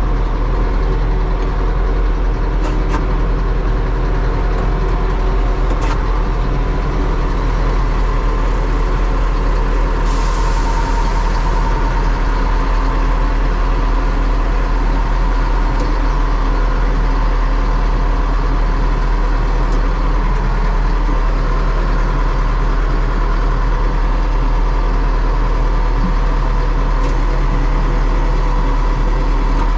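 DT-75 crawler tractor's diesel engine running steadily under load while dozing soil, heard loud from inside the cab. A brief hiss about ten seconds in.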